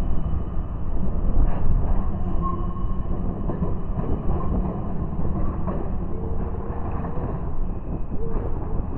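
Articulated low-floor electric tram running along street tracks and moving away, a steady low rumble. Faint brief squeals of steel wheels on rail come through now and then.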